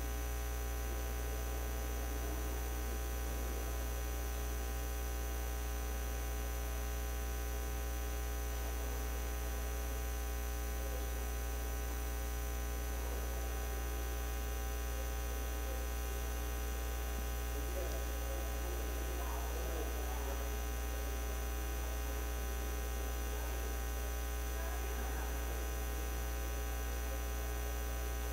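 Steady electrical mains hum with a ladder of harmonics, unchanging in level throughout.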